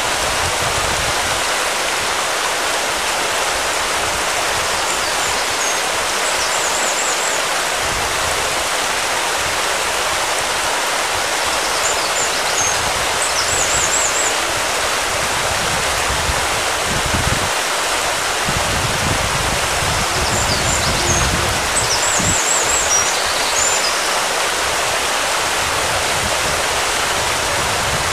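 Steady rush of sea water washing against breakwater rocks. Faint high chirps come three times, about seven seconds apart, and there are occasional low rumbles.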